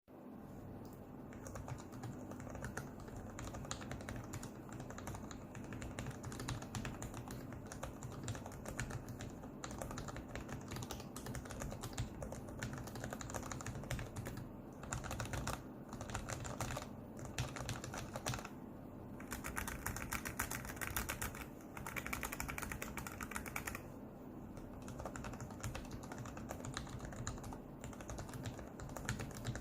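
Typing on a Sharkoon Purewriter TKL mechanical keyboard with low-profile Kailh Choc red linear switches (55 g): a steady stream of keystroke clicks, with a faster, denser run of strikes about two-thirds of the way through.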